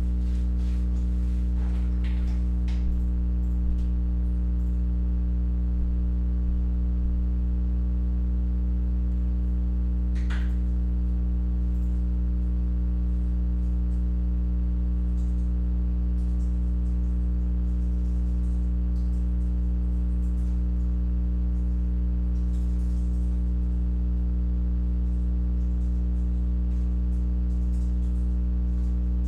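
Steady electrical mains hum: a low buzz with evenly spaced overtones that holds unchanged throughout, with a few faint brief rustles and clicks.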